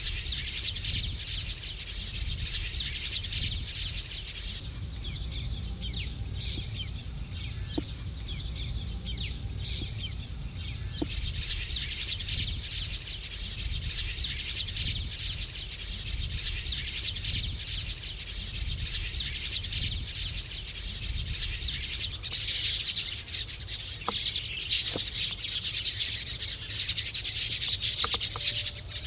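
Steady high-pitched insect chorus of crickets with short chirps from small birds (cittu kuruvi) mixed in. The drone shifts in pitch and loudness a few times, with a low rumble underneath.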